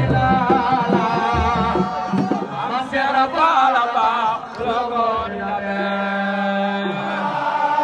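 A man singing a devotional chant into a microphone, his voice wavering and sliding in pitch. Drums beat under it in the first second or so.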